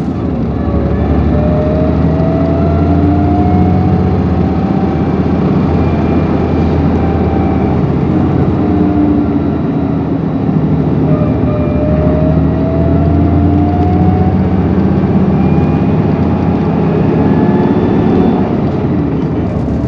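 Isuzu PKG-LV234L2 city bus heard from the rearmost seat, close to the rear diesel engine, under way. A steady low engine drone runs throughout, and a whine rises in pitch over a few seconds, twice, as the bus gathers speed. The bus is singled out as one that makes an abnormal noise.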